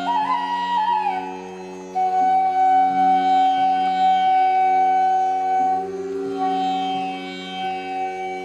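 Background music in an Indian meditative style: a flute melody over a steady drone, gliding between notes at first and then holding one long note for several seconds.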